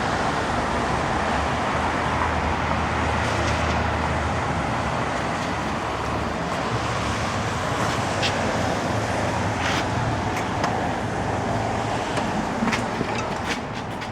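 Steady road-traffic noise with a low engine hum underneath, and a few sharp clicks in the second half.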